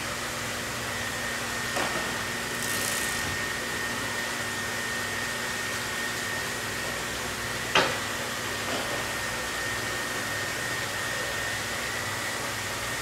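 Steady machine hum and hiss with a thin high whine. A brief high hiss comes about three seconds in, a small knock near two seconds, and a sharper, louder knock about eight seconds in.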